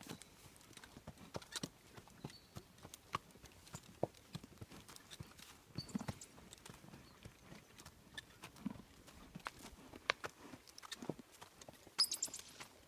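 Hooves of a half-Shetland pony mare walking on dry, hard dirt: an irregular run of soft clip-clop hoofbeats, with a brief louder clatter near the end.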